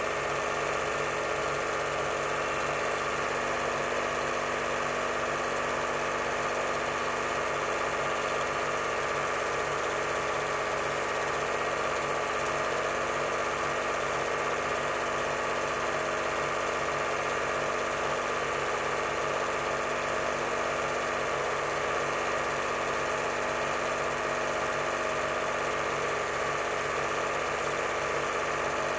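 8mm cine projector running steadily: an even mechanical hum made of several fixed tones, over a fast regular rhythm from the film-advance mechanism.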